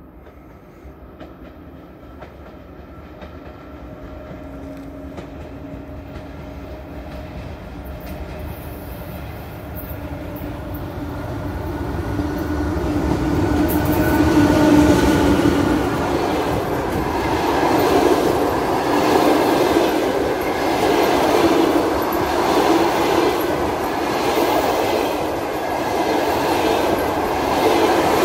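Electric locomotive hauling a passenger train, approaching and passing close by. A steady hum and rumble grows louder for about fifteen seconds as the locomotive nears and goes past. The coaches' wheels then clatter over rail joints in a steady repeating rhythm.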